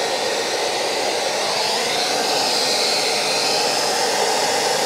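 Hand-held hair dryer running steadily on its highest heat setting at first speed, a continuous rush of air with a hum. A high whine in it rises a little about a second and a half in.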